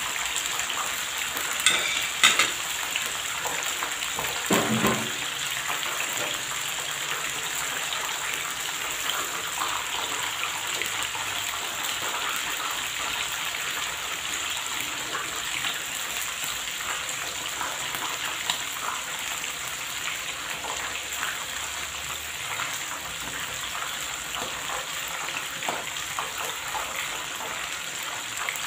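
Battered squid rings deep-frying in hot oil: a steady sizzle and bubbling hiss. A few sharp clicks come about two seconds in, and a heavier knock comes near five seconds.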